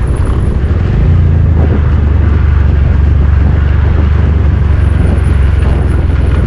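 Motorcycle engine running steadily while being ridden, getting louder about a second in and holding its pitch.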